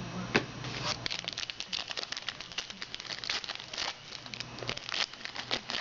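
Foil trading-card pack wrapper crinkling and tearing as it is opened, a busy run of irregular crackles.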